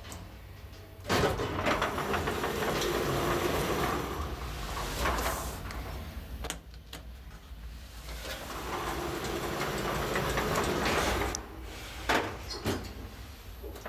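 KONE Stella hydraulic elevator in operation: its sliding doors and the car running make two long stretches of steady noise with a short lull between. A couple of sharp clunks come near the end as the car reaches the second floor.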